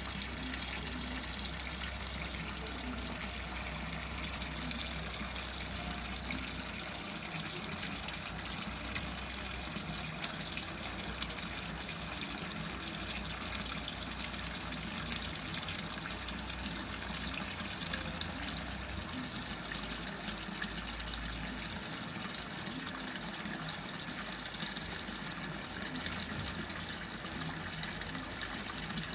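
Seagull (HaiOu) washing machine running a load of towels, with a steady rush of water inside the machine and a low hum that stops and starts in the bass.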